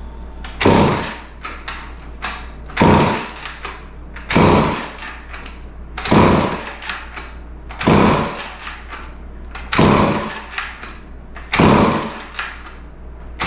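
Vintage Montgomery Ward 10-inch chainsaw being pull-started, its recoil starter yanked seven times about every second and a half to two seconds, the small two-stroke engine cranking over with each pull. The carburetor has just been primed with premix.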